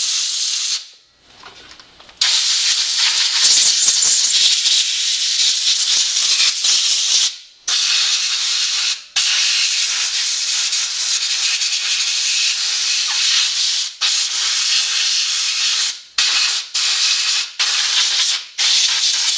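Compressed air from an air compressor's blow gun hissing loudly in long blasts with brief pauses, then several quick short blasts near the end, blowing dirt out of a nitro RC buggy's engine around the glow plug hole and cylinder head.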